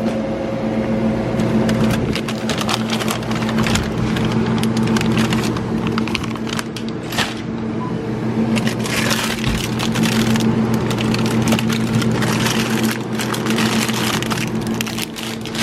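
Irregular crackling and rustling, dense from about two seconds in, over a steady low hum.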